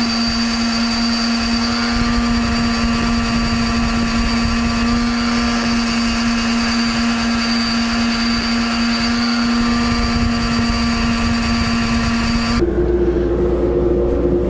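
Bench buffer motor running steadily while the sole of a metal fairway wood is polished on an unstitched sisal buffing wheel charged with black rouge: a steady hum with a hiss over it. About twelve and a half seconds in the hiss cuts off and a lower hum with a rumble remains.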